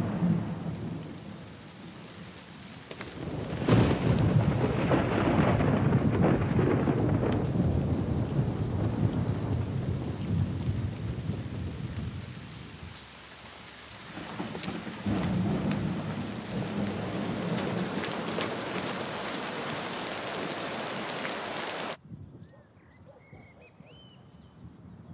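Thunderstorm: steady heavy rain with long rolls of thunder, swelling about three seconds in and again about fifteen seconds in. It cuts off suddenly near the end, leaving a quiet background with a few faint high chirps.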